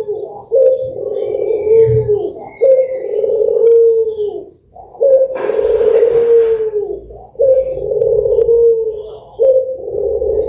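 Puter (collared dove) cooing: a run of about five long, low coos, each roughly two seconds, following one another with hardly a gap. A short burst of hiss sounds about five seconds in.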